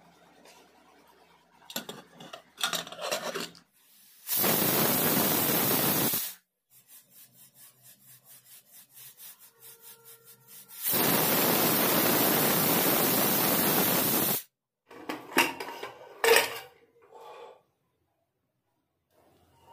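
Hawkins Contura pressure cooker whistling twice, each a loud hiss of venting steam lasting two to three seconds, with a softer rhythmic pulsing, about two to three a second, between them. Before them a spoon clatters against the pot, and sharp metal clinks follow later.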